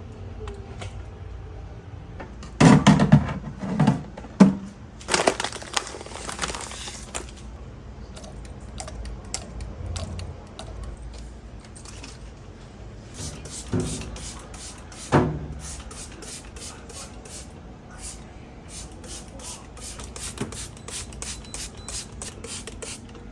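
Knocks and clatter of items being handled, with a hiss of about two seconds near the start and many light clicks and taps later on, as things are cleaned and moved about.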